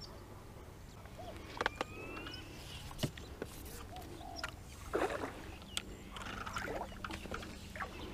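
A hooked carp splashing at the surface as it is played in to the landing net, with a few sharp clicks between the splashes.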